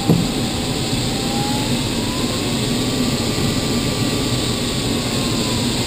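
Steady rush of air past a glider's canopy in flight, with the electronic variometer's continuous audio tone sliding up in pitch over the first couple of seconds and back down near the end, following the glider's climb and sink. A single short knock just after the start.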